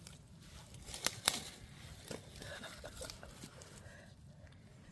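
Dry leaf litter rustling and crackling as it is handled, with two sharp clicks about a second in and a few softer ticks after.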